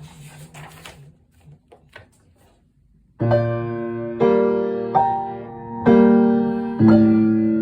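Piano duet: after about three seconds of near-stillness with a few faint clicks, full chords with a strong bass come in, struck about once a second and left to ring.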